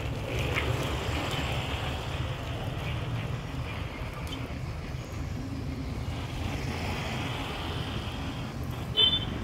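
Street traffic noise with a steady low rumble, as a motor scooter rides past near the end. A brief high-pitched beep sounds just before the end.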